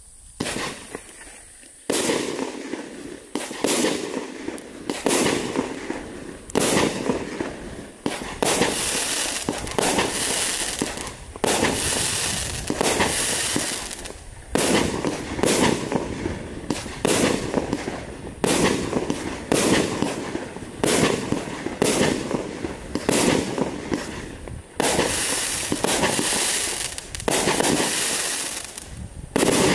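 A 1.3G firework barrage from the Pyro Mafia Mobsters crate firing shot after shot, about one a second, each a sharp bang that trails off as it fades. It starts about two seconds in and keeps up a steady pace through to the end.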